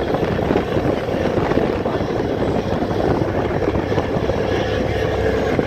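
Steady, loud rush of wind buffeting the microphone mixed with the drone of a passenger ferry's engines, heard from the open deck while the boat is under way.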